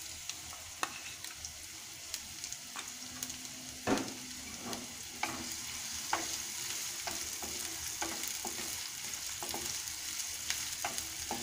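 Freshly added chopped onions frying in hot soybean oil in a nonstick pan, with a steady sizzle. A spatula stirs them, scraping and tapping against the pan at irregular moments; the sharpest tap comes about four seconds in.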